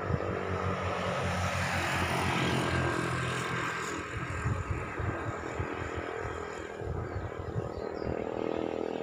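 Outdoor traffic noise: a passing road vehicle that swells to a peak about two to three seconds in and then fades, over a steady low hum.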